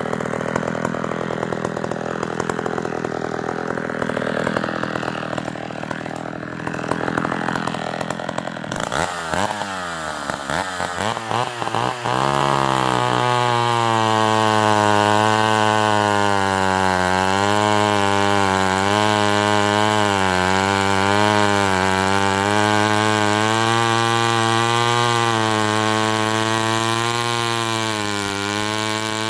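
Vintage Sears D-44 chainsaw, a 70 cc two-stroke, running rough at low speed for the first several seconds. It then revs up and is held near full throttle for about the last sixteen seconds, its pitch dipping and recovering slightly, as it does when cutting through maple.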